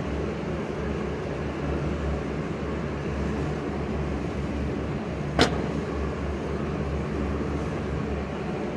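Steady low hum and rush of an indoor shooting range's ventilation. About five and a half seconds in there is one sharp crack.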